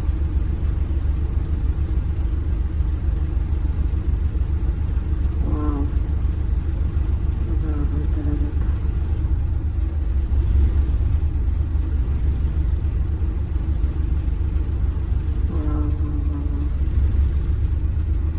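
Steady low rumble of a bus engine running, heard from inside the bus while it stands or creeps in traffic.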